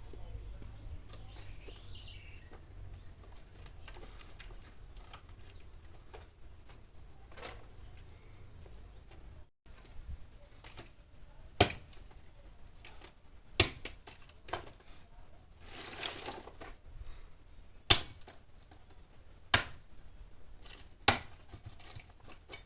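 Sharp wooden knocks of firewood being handled and dropped onto a bonfire pile: five loud knocks in the second half, about one and a half to two seconds apart, with a brief rustle between them.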